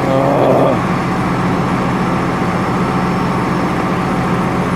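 Hino 258 medium-duty truck's diesel engine idling steadily, with a brief higher-pitched sound right at the start.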